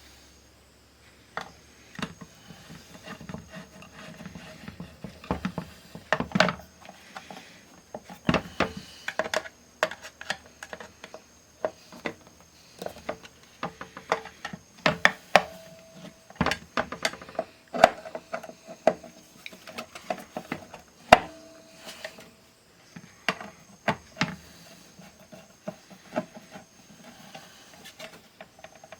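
Irregular clicks, taps and light clatter of small hard parts and tools being handled on a workbench, with a faint high whine coming and going.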